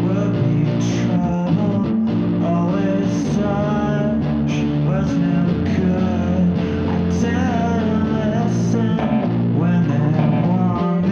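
A rock song playing: a voice singing a wavering melody over guitar and steady sustained low notes.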